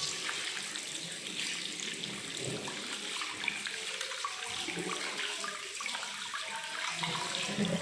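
Water running from a tap into a sink as hands are washed under it, a steady hiss.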